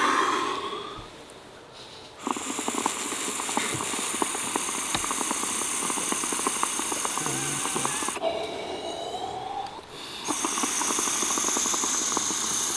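Water bubbling rapidly through a small glass dab rig as someone inhales through it, in two long pulls with a short break about 8 seconds in.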